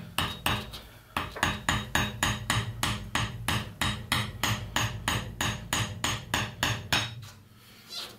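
Tire plug being driven into a tire's nail hole with a plug-kit insertion tool: a fast, even run of sharp taps, about four a second, stopping about a second before the end, over a steady low hum.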